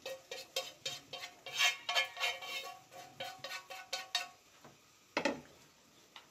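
Chopsticks scraping and tapping fried minced duck filling out of a nonstick frying pan onto a plate, a fast run of clicks and scrapes that stops about four seconds in. A single knock a little after five seconds as the pan is set down on the gas stove.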